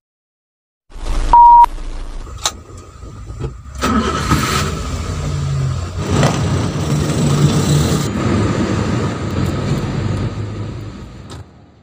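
A short, loud steady beep, a couple of sharp clicks, then an engine starting up and running steadily before fading out near the end.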